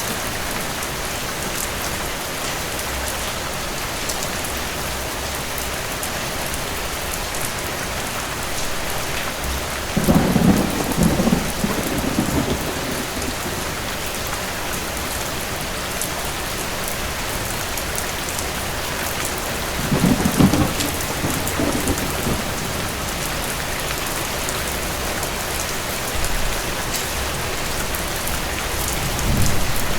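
Steady heavy rain with thunder rumbling twice, about ten seconds apart, each roll lasting a couple of seconds, and a third beginning near the end.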